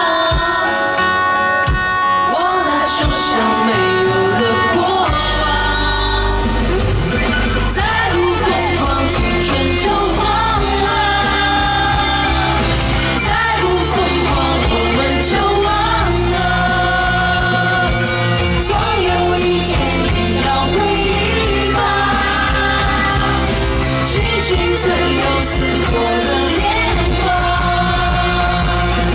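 A female singer's amplified live vocal over a rock band, with long held notes. The bass comes in heavily about five seconds in.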